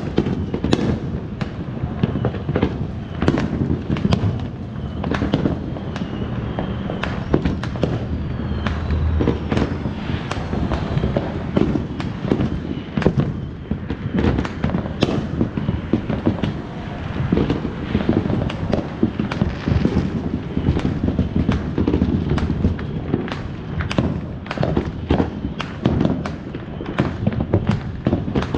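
Many fireworks going off at once: a dense, unbroken run of sharp bangs and crackles over a steady low rumble.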